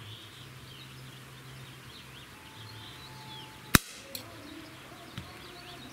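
Trigger of a Gletcher M1891 CO2 BB rifle breaking under the slow pull of a digital trigger gauge: a single sharp click a little under four seconds in, as the trigger lets off at 2 pounds 13 ounces. Birds chirp faintly in the background.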